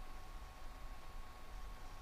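Room tone: a steady faint hiss with a low rumble and a thin, steady high whine, with no distinct events.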